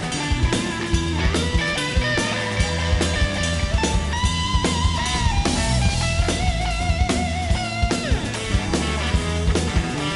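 Live blues-rock band playing: a semi-hollow electric guitar takes the lead with long held notes that bend and waver with vibrato, over electric bass and a drum kit.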